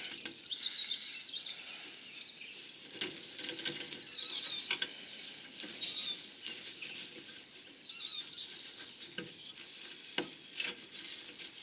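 Plastic shade cloth rustling in several short spells as it is handled and shoved into place, with a few light knocks between.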